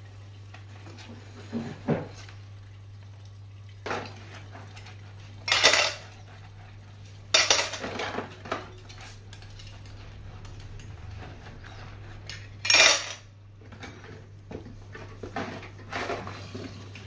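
Dishes being washed by hand in a sink: ceramic bowls and cutlery clattering and clinking as they are scrubbed and set down, with sharp louder clatters about five and a half, seven and a half and thirteen seconds in. A steady low hum runs underneath.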